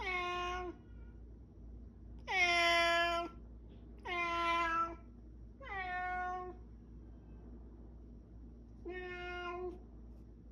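A pet animal calling five times with pauses between, each call dipping briefly in pitch and then holding one steady note for just under a second; the third call is the loudest.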